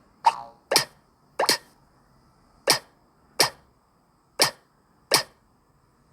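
A series of seven short, sharp sounds, partly in pairs about half a second to a second apart, with quiet between them.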